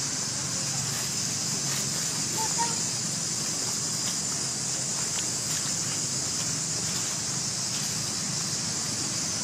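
Steady, unbroken high-pitched drone of insects, with a few faint ticks.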